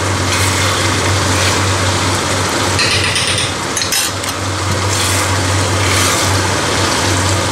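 Beef, potatoes and chopped vegetables sizzling as they fry in a non-stick pan while tomato paste is stirred in. The sizzle flares louder briefly about three seconds in, over a steady low hum.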